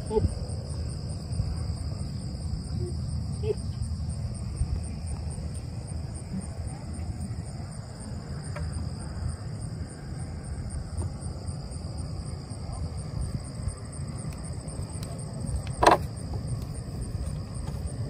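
Field insects trilling steadily in a pasture: one continuous high trill with a faster, evenly pulsing trill above it, over a low rumble. A single sharp knock about sixteen seconds in is the loudest sound.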